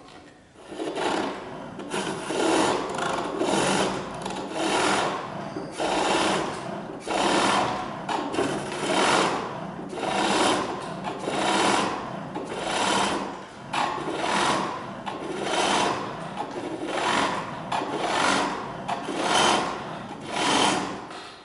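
Pole lathe turning a wooden handle: a hand-held turning chisel shaving the spinning wood in rhythmic bursts of about one cut a second, each cut on the treadle's downstroke as the cord spins the work toward the blade, with a short lull between strokes as the pole springs back.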